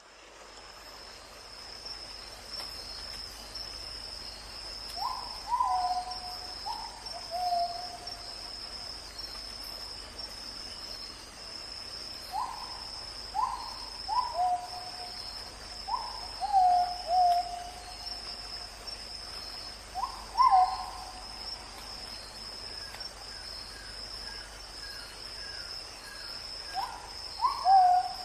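A bird calling in short hooting notes, each starting sharply and falling into a held lower note, in groups of two or three repeated several times, over a steady high-pitched insect buzz that pulses regularly.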